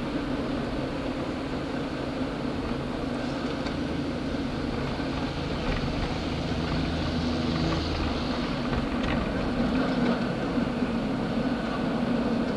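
Car cabin noise while driving: a steady engine and road rumble, with a few faint clicks and knocks.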